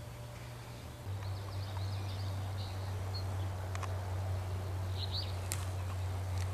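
A steady low hum, stepping up in level about a second in, with faint songbird chirps above it and a few soft clicks.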